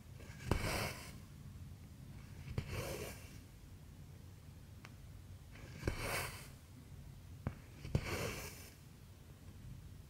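Cross-stitch needle punching through taut 11-count fabric with a sharp click, then cotton thread drawn through the holes with a short rasping swish. This happens four times, about every two to three seconds, with a couple of lone needle clicks in between.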